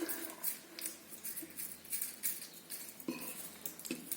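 Kitten eating cheese: a string of small chewing and lip-smacking clicks, with a couple of louder knocks near the end.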